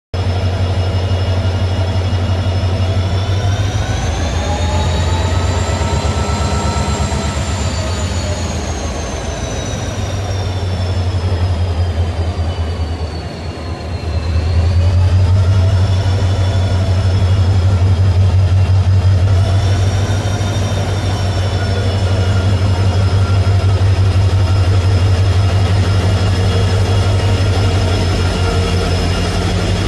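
WDP4D diesel locomotive's EMD 710 two-stroke V16 engine running with a heavy, steady low throb and a high whine. Its pitch rises about four seconds in, sinks slowly until about fourteen seconds, where it briefly dips in loudness, then climbs again and holds.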